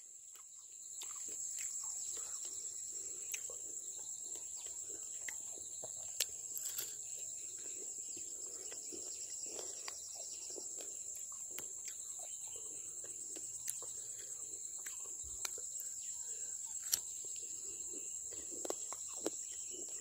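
Steady high-pitched shrilling of an insect chorus, with scattered faint clicks throughout.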